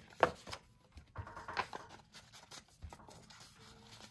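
Paper being handled on a desk: soft rustles and light taps as paper pieces are shifted, with one sharper tap about a quarter second in.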